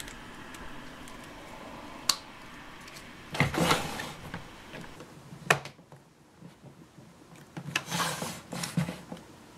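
Hard plastic parts of a Play-Doh Perfect Twist Ice Cream playset rubbing and clicking as a cone dispenser and dish holder are snapped onto the toy's tower. A sharp click comes about two seconds in and another about halfway through, with scraping handling noise in between and near the end.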